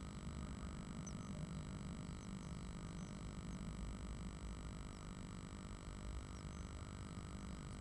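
Steady electrical hum and low rumble from a nest-box camera's microphone, with a few faint, very short high chirps scattered through.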